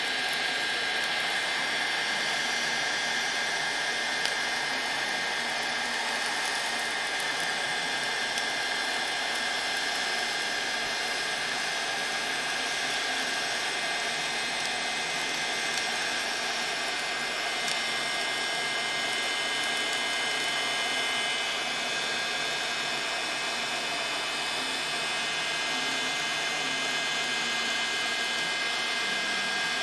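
1,500-watt, 500 °C Mastercraft heat gun blowing steadily, its fan motor running with a constant high whine over the rush of hot air.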